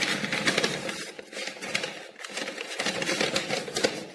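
Sheets of paper being pulled out and unfolded by hand: a dense crinkling rustle full of sharp little crackles, dying away near the end.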